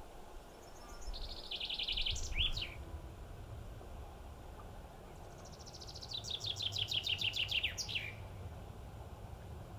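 A songbird singing two short songs a few seconds apart. Each is a fast run of high notes stepping down in pitch and ending in a quick downward flourish.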